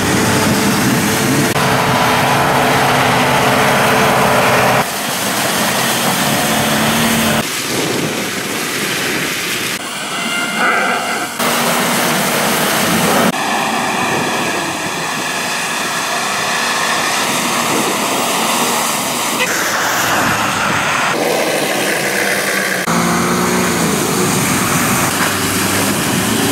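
Engines of off-road 4x4 vehicles (a Nissan Patrol and a Mitsubishi L200) running and revving under load as they drive through snow, mud and water, with the noise of tyres and churned mud alongside. The sound switches abruptly every few seconds from one clip to the next.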